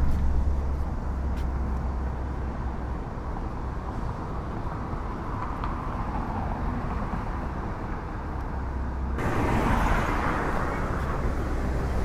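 Steady road traffic noise from cars passing on a city overpass, with a low rumble. It swells as vehicles go by, and about nine seconds in it suddenly becomes brighter and fuller.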